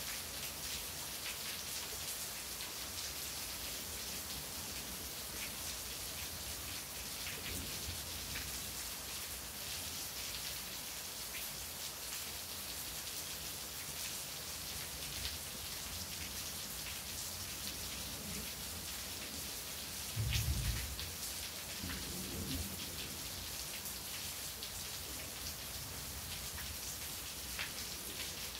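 Steady rain falling, with individual drops striking close by, and a brief low rumble of thunder about twenty seconds in.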